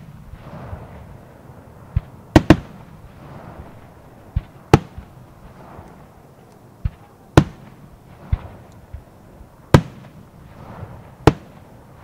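Aerial firework shells bursting one after another: about ten sharp bangs, roughly one every second or so, several with a duller thump shortly before them.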